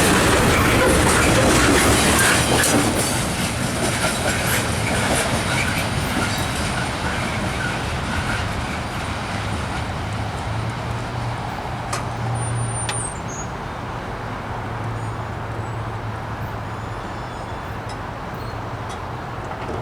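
Train rolling past, its wheels clicking over the rail joints. The noise eases off after a few seconds, leaving a steady low hum.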